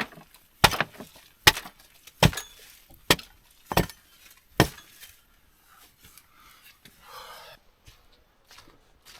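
Wood being chopped: seven sharp strokes, about one every three-quarters of a second, stopping about five seconds in. After that, only faint rustling.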